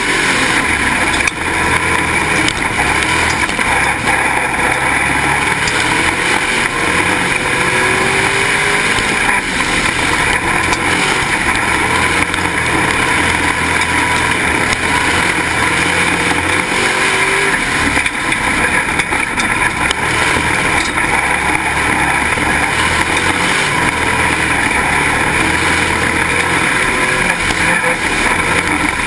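Dirt-track Pro Stock race car's engine running hard at racing speed, heard onboard through a GoPro, its pitch rising and falling again and again, over a steady loud rush of wind and road noise.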